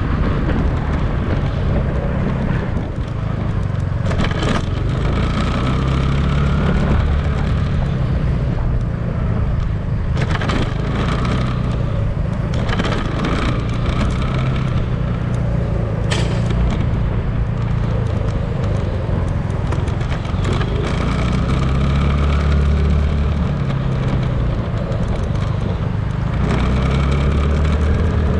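Motorcycle riding along a street, heard from a camera mounted on the bike: the engine runs with its low note rising and falling with speed, and a few sharp knocks come through about three times.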